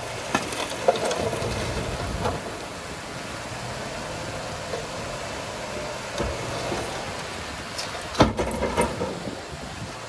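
Heavy earthmoving machinery running steadily, with scattered sharp knocks; the loudest cluster of knocks comes about eight seconds in.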